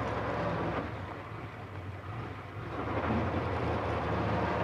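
Engine of a vintage open racing car running as it drives along, easing off briefly about two seconds in, then picking back up to a steady run.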